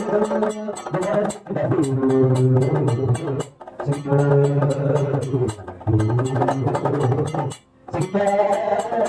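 Kathakali accompaniment: a low male voice singing the padam in long held, sliding phrases with short breaks between them, over steady metallic strikes of gong and small cymbals keeping the rhythm.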